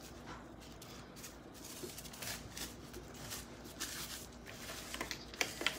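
Tissue paper being crumpled by hand into balls: an uneven, soft crinkling and rustling, with a few sharper crackles near the end.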